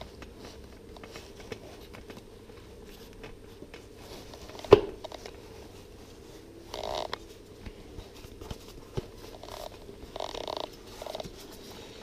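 Quiet handling of diesel heater casing parts being fitted back together: one sharp click about halfway through and a few short soft rustles.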